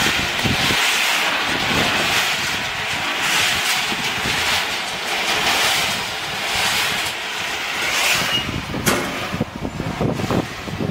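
Stainless-steel peanut roasting machine running, with peanuts churning inside it as a steady rustling hiss that swells and fades about every second and a half. A few sharp metal knocks come near the end as its discharge tray is handled.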